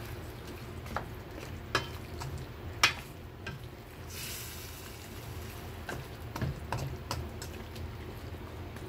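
Spoon stirring chicken curry with potato and carrot chunks in a stainless steel wok, the food sizzling lightly. Scattered knocks and scrapes of the spoon against the pan, the loudest about three seconds in, over a steady low hum.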